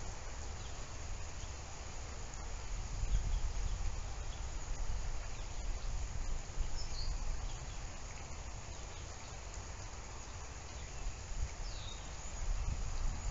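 Steady outdoor background hiss with a low rumble, and two short high falling chirps, about seven and about twelve seconds in.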